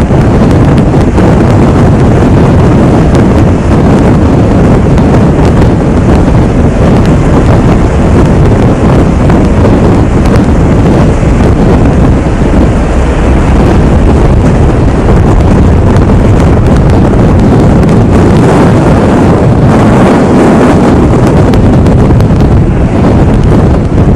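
Strong wind blowing over the microphone: a loud, steady rushing noise with no letup.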